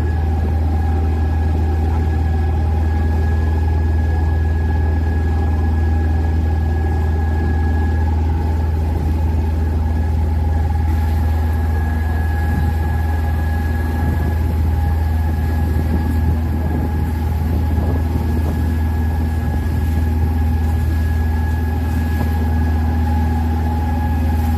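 Open tour boat's engine running steadily: a deep, even drone with a thin steady whine above it.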